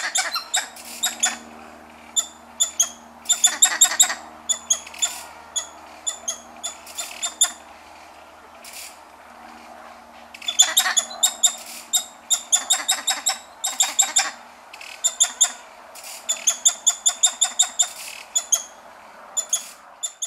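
Titi monkeys (Callicebus donacophilus) giving chirrups: short, sharp, high bird-like chirps that come in quick runs with pauses between, over a steady background hiss.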